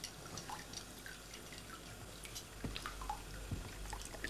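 Faint, scattered drips and small splashes of bath water in a tub.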